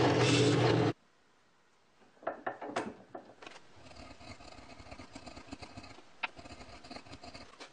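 A woodworking power tool runs steadily with a low hum, then stops abruptly about a second in. Quieter knocks and scraping of wood being handled follow, with a few sharper taps.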